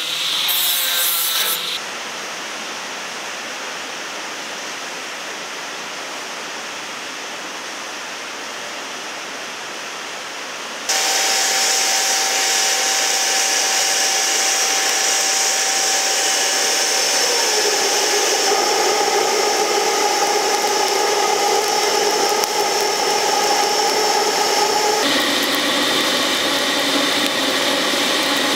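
An angle grinder whines into the steel for the first couple of seconds, then a quieter, steady hiss as the blade is worked. About eleven seconds in, the forge blower starts up loud with a steady hum, fanning the charcoal fire; its pitch slides lower about seventeen seconds in.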